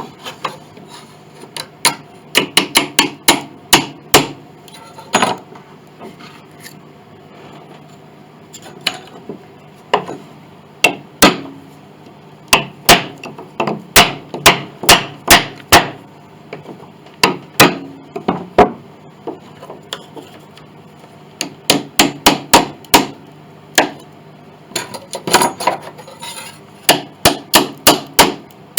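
A hammer tapping wooden wedges into a glued joint of an 1867 Chickering grand piano, to crack the old glue and lift the part free. The taps come in quick runs of several a second, with short pauses between them.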